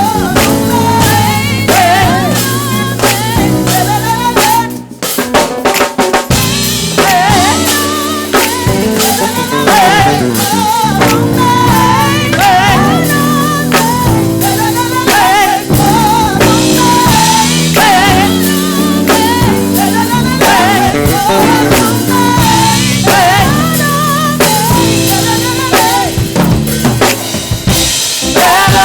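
Live gospel church band playing an upbeat groove led by a drum kit, with snare rimshots and bass drum under a bass line and a wavering melody line. The band breaks off briefly about five seconds in, then comes back in.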